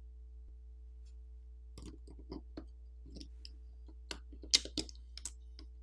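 A scatter of small, sharp clicks and light taps of a screwdriver and small phone parts as a smartphone's main-board screw is taken out and the board is lifted free. The clicks begin after about a second and a half of quiet and are loudest about four and a half seconds in. A faint steady hum runs under them.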